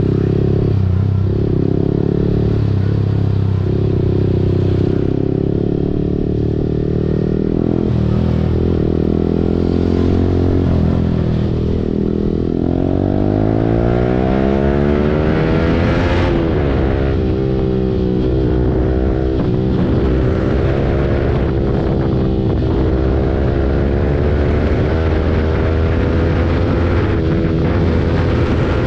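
Yamaha R15 V4's single-cylinder engine through an Akrapovic full-system exhaust, riding at steady throttle, then accelerating hard about halfway through with a rising pitch that drops off suddenly at a shift. After that it revs up and falls back several times through gear changes.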